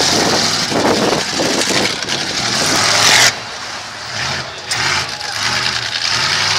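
Demolition derby cars' engines running and revving in the arena. The first few seconds are loud and dense, dropping suddenly a little past halfway, after which the engines are heard revving up and down.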